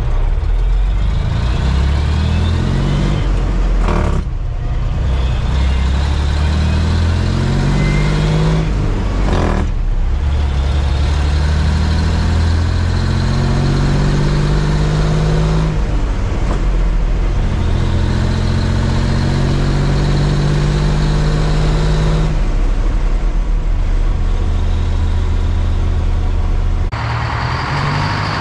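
Brockway 260 truck's diesel engine heard from inside the cab, pulling up through the gears: the engine note rises, breaks off at each gear change and drops back, about five times. Near the end it gives way to the steadier sound of a truck idling.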